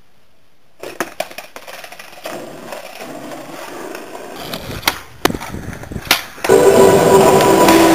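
Skateboard wheels rolling on pavement, with sharp clacks of the board popping and landing a few times. Near the end a much louder, steady sound with held tones sets in.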